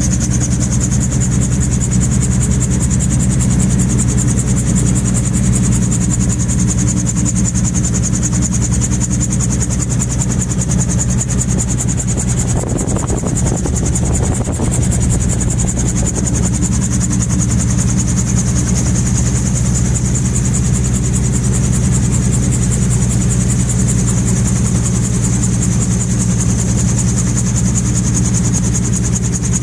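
Gyrocopter engine idling with a steady low drone while the aircraft soars on the wind, a steady high hiss above it. About halfway through, a rush of air noise swells for a few seconds and then settles.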